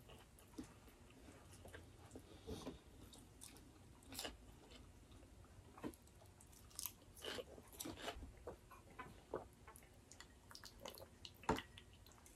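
Quiet close-up chewing and mouth sounds of people eating rice and beef rendang by hand, with scattered soft, irregular clicks and smacks.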